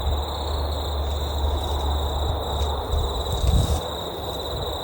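Insects trilling steadily at a high, even pitch, over a low rumble.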